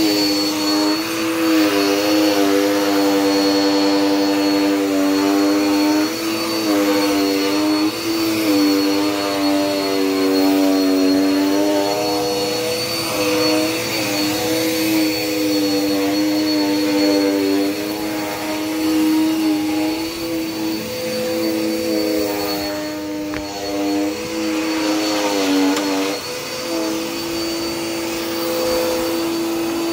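Dirt Devil Power Max Pet bagless upright vacuum cleaner running steadily. Its motor hum dips in pitch briefly several times under changing load, over a thin constant high whine.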